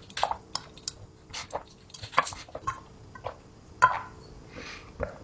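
Irregular light clicks and taps from handling food and drink containers, about a dozen spread through, with a faint short hiss near the end.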